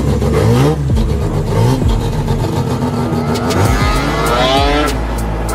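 Rotary engine of a Mk1 Ford Escort revving: the pitch swings up and down in quick blips during the first second, then rises steadily from about three seconds in as the car accelerates.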